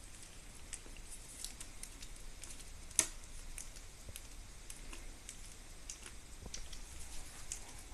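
Chihuahua puppies eating soft minced raw meat: scattered small wet clicks and smacks of chewing and licking, with one sharper click about three seconds in.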